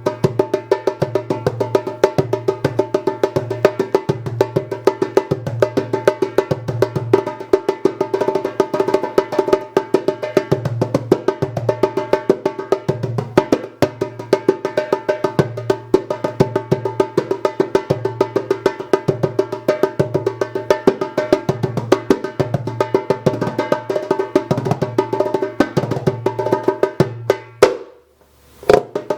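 Hand-played doumbek with a 3D-printed PET-G body and a 9-inch Remo Cleartone head: fast, sharp rim strokes in a steady rhythm over regularly recurring deep low strokes, the head ringing. Near the end the playing breaks off for about a second, then resumes.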